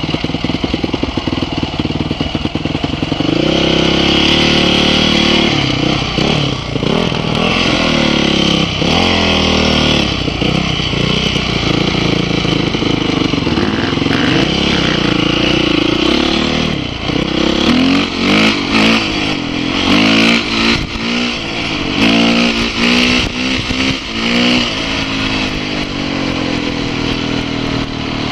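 Dirt bike engine running under way, its pitch rising and falling again and again with throttle and gear changes, with a quick run of revs up and down in the second half.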